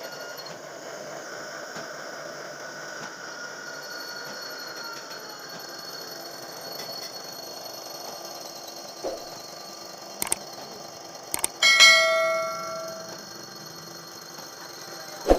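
Steady workshop machine hum with a few sharp metal knocks, then a hard metal clang about twelve seconds in that rings like a bell for a second or so before fading.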